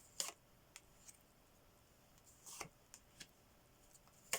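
A few soft, scattered clicks and rustles of tarot cards being handled on a table.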